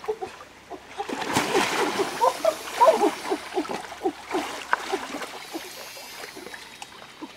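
Water splashing and sloshing as a person wades into a shallow river pool and sweeps a woven bamboo basket through the water. The splashing starts about a second in and is busiest in the next couple of seconds, with another flurry midway, then thins out.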